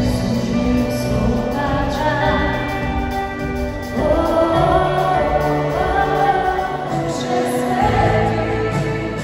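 Live Christian worship music from a band on an arena stage, with several voices singing together over sustained chords. The music gets louder about four seconds in.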